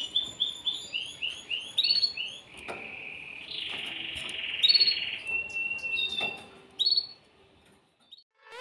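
Excited male canary singing: quick runs of repeated high chirping notes, a fast rolling trill about three to five seconds in, and a few more phrases before the song stops about seven seconds in.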